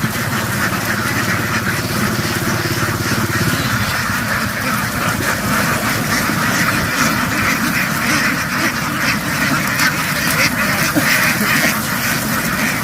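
A large flock of domestic ducks quacking all at once in a continuous loud din. A low steady hum runs underneath and stops about three and a half seconds in.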